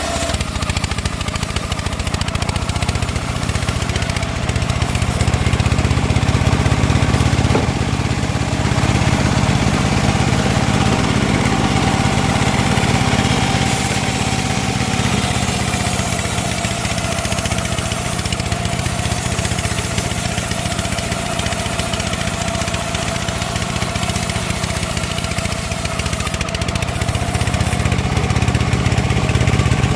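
Homemade bandsaw mill running while it saws teak: a steady machine drone with a thin whine above it that sags slightly in pitch midway and climbs back near the end.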